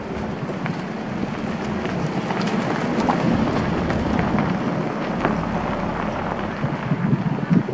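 A Honda HR-V driving slowly by on a gravel and dirt track, its tyres crunching over the stones. It grows louder as it comes close, about three seconds in.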